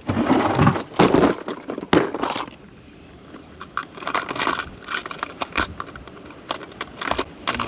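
Rattling and knocking of gear being handled in a boat: a quick run of clatters and jingles, densest in the first two and a half seconds, then scattered clicks.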